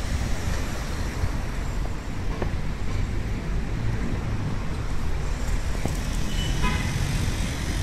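Steady rumble of city street traffic, with cars and a light truck passing. A short high-pitched tone sounds near the end.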